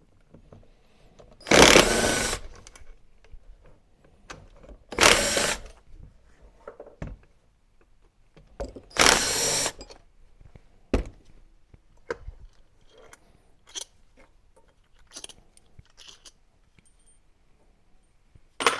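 Cordless power driver spinning out three T25 Torx screws from a Webasto Thermo-top V diesel heater's body: three short runs of about a second each, a few seconds apart. Light clinks and knocks follow as the loosened parts are handled, with one sharp knock near the end.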